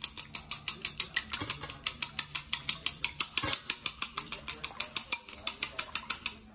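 Two raw eggs being beaten with metal chopsticks in a ceramic bowl: a rapid, even clicking of the chopsticks against the bowl, several strokes a second, stopping near the end.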